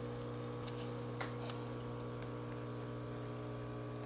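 Steady low electrical hum, with a few faint scattered clicks over it.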